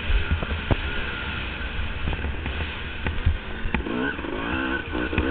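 Motocross bike's engine racing, heard from a camera mounted on the bike: the note falls away off the throttle, then climbs as it revs up again near the end. Wind buffets the microphone throughout, with several sharp knocks from the rough track.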